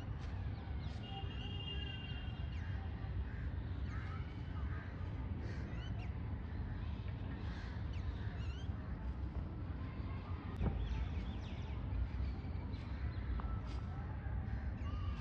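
Many birds calling over one another in short, overlapping chirps and calls, over a steady low rumble, with one sharp click about ten and a half seconds in.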